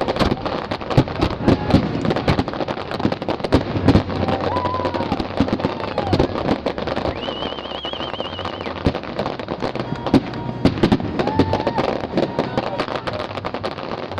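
Fireworks display: a dense run of rapid crackling and popping from bursting shells, with sharper bangs scattered through. A short warbling high whistle comes about seven seconds in.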